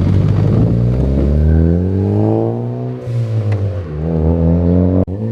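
Ford Focus ST's turbocharged four-cylinder, through an aftermarket cat-back exhaust, accelerating away. The exhaust note climbs in pitch, drops back, then climbs again, and cuts off abruptly near the end.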